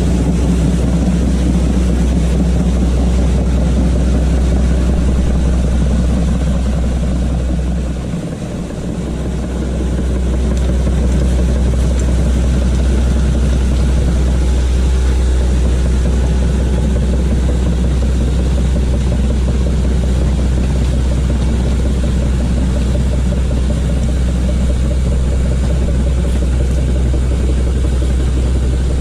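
Hitachi hydraulic excavator's diesel engine running steadily with a deep low drone, which dips briefly about eight seconds in before returning.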